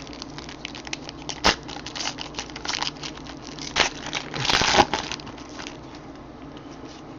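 Trading card packs and cards being handled: wrapper crinkling with short clicks and snaps, a sharp snap about one and a half seconds in, another near four seconds, and a louder crinkling rustle around four and a half seconds in.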